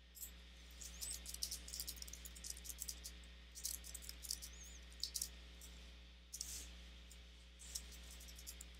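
Computer keyboard being typed on: a quick, uneven run of faint key clicks over a low steady hum, with a few single clicks later on.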